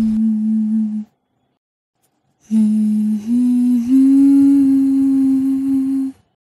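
A voice humming long held notes as a slow background melody: one note that stops about a second in, then after a silence of about a second and a half, a note that steps up twice, each step held steady.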